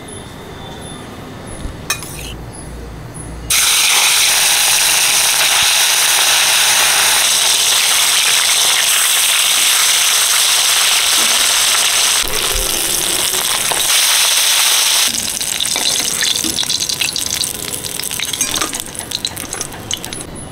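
Rohu fish steaks, rubbed with turmeric and salt, sizzling loudly in hot oil in a steel wok. The sizzle starts suddenly about three and a half seconds in and later settles into a lighter, uneven crackle.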